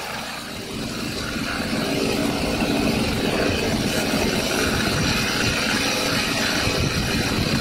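Gasoline two-stroke chainsaw idling steadily.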